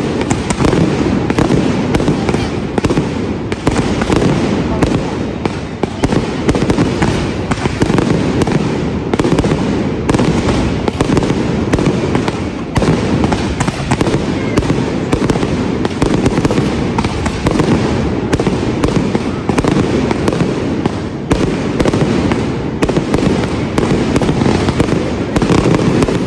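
Street pyrotechnics of a correfoc: handheld fire fountains giving a steady loud rushing hiss, with a rapid, irregular run of firecracker cracks and bangs throughout.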